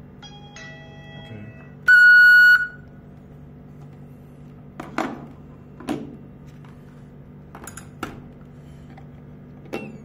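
Electronic tones from an IP video intercom being tested: a short two-note chime about half a second in, then a loud steady beep near two seconds. Several sharp clicks and taps follow as the units are handled.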